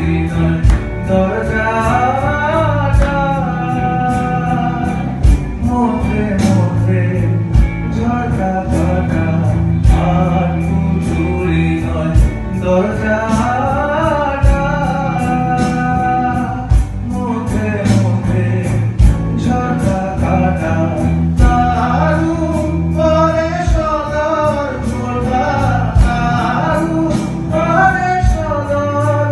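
Live rock band playing: a man singing in Bengali into a handheld microphone over electric guitars, electric bass and a drum kit keeping a steady beat.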